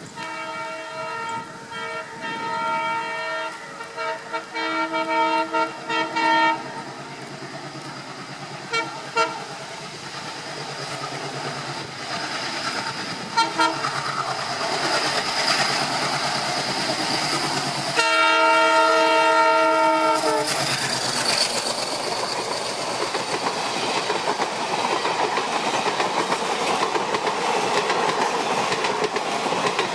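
Indian Railways train sounding its horn in a series of short blasts, then a few more, then one long blast about eighteen seconds in. Meanwhile the rumble and wheel clatter of the train grow louder as it approaches and runs past.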